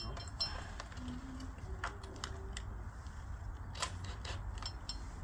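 Scattered light clicks and taps from hands handling the bell rope and its fittings, over a steady low rumble.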